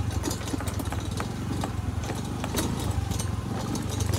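A scooter's engine runs steadily under many irregular knocks and rattles as it rides over a rough, broken dirt road.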